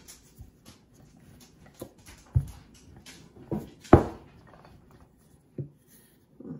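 Wooden rolling pin rolling pie dough on a floured wooden board, with a soft rustle and several dull knocks of the pin against the board, the loudest about two and four seconds in.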